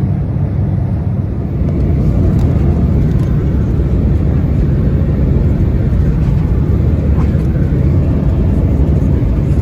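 Steady in-flight cabin drone of an Embraer 175 regional jet, heard from inside the passenger cabin. It is loud and low, and swells slightly about a second and a half in before holding level.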